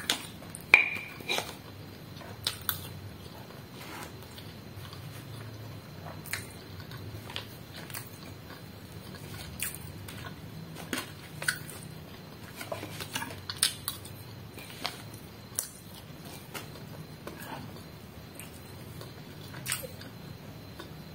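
Metal spoon clinking and scraping through a rice meal wrapped in paper, with scattered sharp clicks and taps and some chewing; the loudest is a short ringing clink about a second in.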